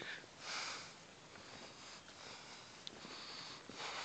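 A hiker breathing hard close to the microphone, out of breath from the uphill climb: one breath about half a second in and another near the end.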